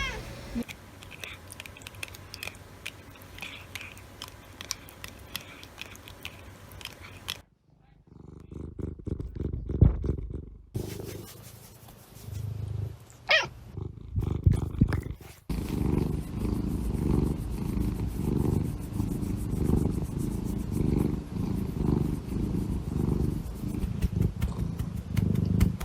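Domestic cat purring close to the microphone in a steady pulsing rhythm through the second half. Before that come quieter stretches with knocks and one short rising cry.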